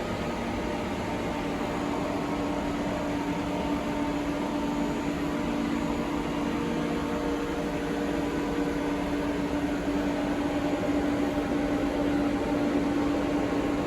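Mori Seiki ZT2500Y CNC lathe running, a steady machine hum with one constant low tone over an even rushing noise.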